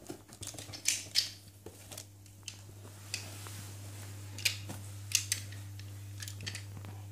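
Cardboard toy box being handled and turned over: scattered taps, clicks and light scrapes of cardboard and packaging, over a steady low hum.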